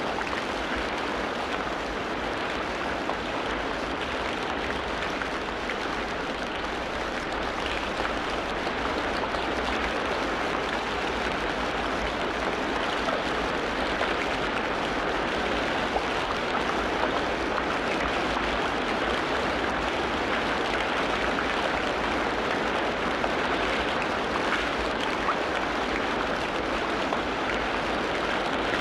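Steady rush of running water in a forest, even and unbroken, with a few faint bird calls above it.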